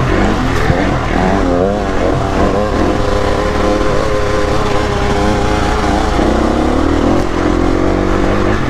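Enduro motorcycle engine running under throttle. Its pitch rises and falls as the rider works the throttle, holds steady and higher in the middle, and drops lower after about six seconds.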